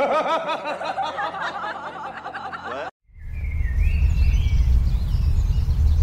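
Snickering, giggly laughter for about three seconds, cut off abruptly. Then a strong low rumble of wind on the microphone, with a few faint bird chirps.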